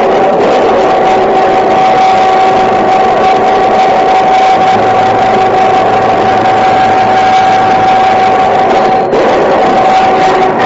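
Loud machinery running steadily with a constant high whine over an engine-like rumble, briefly interrupted about nine seconds in.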